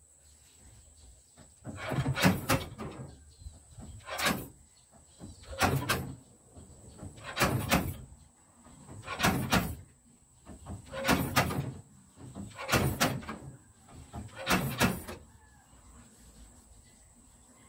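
Slide-hammer dent puller pulling a dent out of a Toyota Celica's steel bonnet: eight clanks of the sliding weight striking its stop, about one every two seconds.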